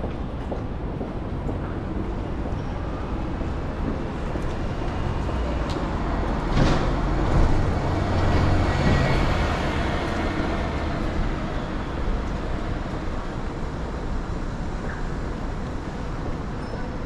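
City street traffic ambience: a steady low rumble of vehicles, which swells as a louder vehicle passes about a third of the way in, then eases back.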